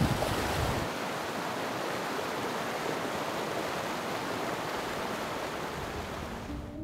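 Rushing water of a fast, shallow river running over rocks, a steady hiss. In the first second, water churns loud and close around legs wading through the current, with low buffeting on the microphone. After about a second it settles into a steadier, even rush.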